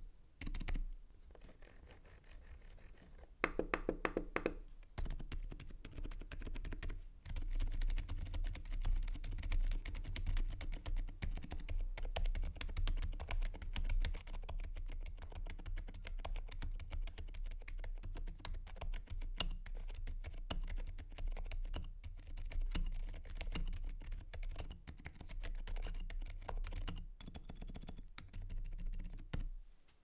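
Continuous typing on a mechanical keyboard, a rapid run of key presses, with a brief pitched sound about three and a half seconds in. The typing starts after a few quieter seconds.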